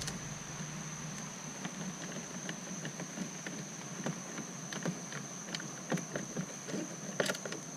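Faint, irregular small clicks and light scraping of a screw being driven into the plastic interior door panel of a Chevrolet Suburban, with a sharper cluster of clicks near the end.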